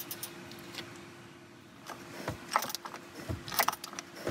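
Ratchet and cap-type oil filter wrench clicking and clinking in irregular bursts as the plastic oil filter housing cap is loosened. The clicks come singly at first and bunch up in the second half.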